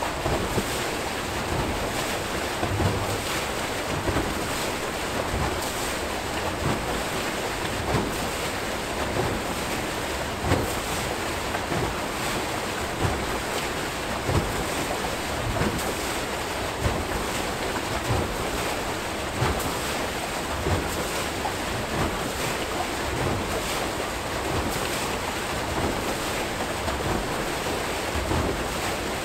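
Archimedes screw hydro turbine turning, its outflow rushing and churning steadily into the river, with a regular louder splash about every second and a half.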